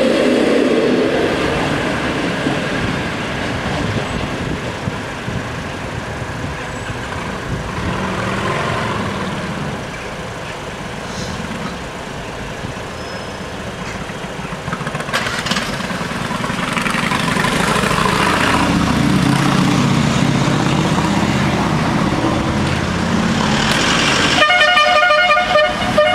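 An MW41 diesel multiple unit finishes passing over a level crossing. Road traffic follows: a motorcycle and cars cross the tracks. A horn sounds with a pulsing tone near the end.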